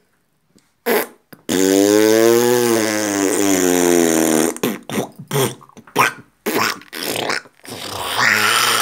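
A long fart sound lasting about three seconds, its pitch rising and then falling, followed by a string of shorter sputtering bursts.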